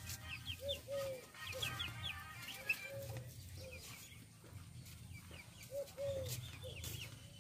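Chickens clucking in short repeated calls, with small birds chirping high over them.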